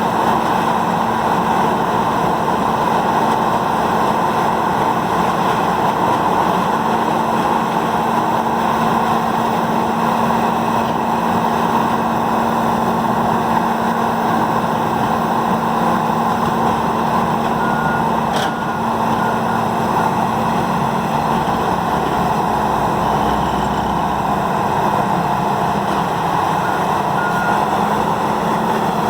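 Peterson 5710D horizontal grinder with its 1125 hp engine running steadily at full load, a constant loud churning noise with a steady hum. Short faint beeps, like a backup alarm, come twice: about two-thirds of the way in and near the end.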